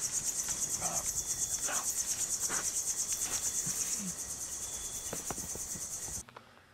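A high, rapidly pulsing insect chorus in the forest, with a few faint rustles of dry leaves as a leaf-covered tunnel hatch is pulled shut. The insect sound cuts off suddenly near the end.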